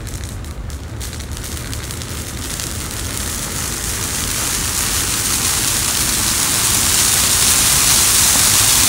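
A Christmas tree catching fire: a few crackles at first, then a rushing hiss of flame that grows steadily louder as the fire takes hold and climbs the tree.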